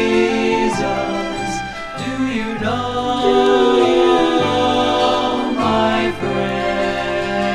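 Orchestrated gospel music: a string-backed arrangement of held chords that change every second or two, with choir voices and no words sung.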